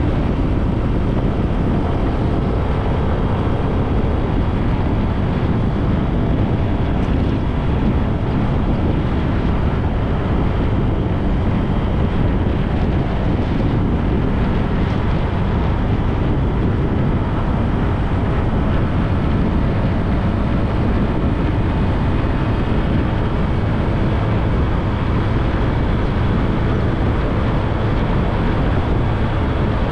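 Steady rush of wind buffeting the microphone on a moving bike, with a continuous low rumble of riding.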